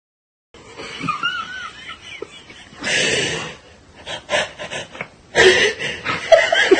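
A person laughing in wheezing, breathy snickers, louder and more continuous near the end.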